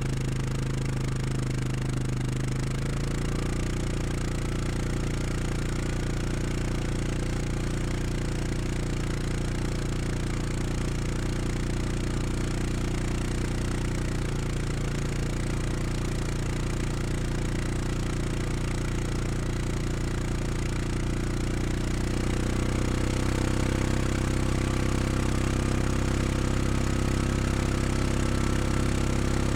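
Four-stroke utility ATV engine running steadily, its tone shifting slightly about three seconds in and growing a little louder from about twenty-two seconds on.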